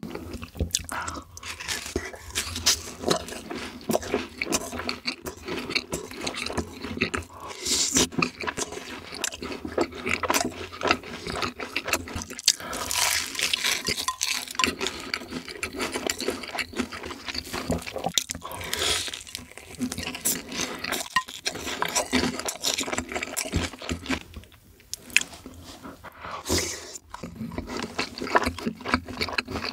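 Close-miked eating: crunching bites and wet chewing of deep-fried, breaded food (cheese balls, fried chicken and cheese sticks dipped in ranch), with a brief lull about three-quarters of the way through.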